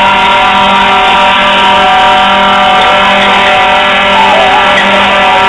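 Fire apparatus engine running steadily at high revs on the fireground, a loud unbroken drone with a fixed pitch.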